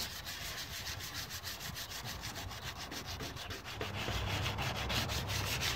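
220-grit sandpaper rubbed by hand over the rusty front fender of a Honda Civic, in quick, even back-and-forth strokes, stripping the rust down to bare metal before body filler.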